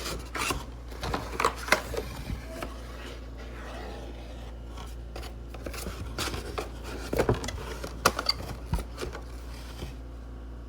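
Handling noise: an irregular run of clicks, rubbing and scraping from objects being moved about, stopping shortly before the end.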